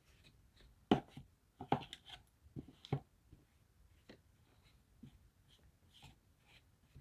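Quiet handling noises: a string of irregular clicks and short scrapes, several louder ones in the first three seconds, with no vacuum motor running.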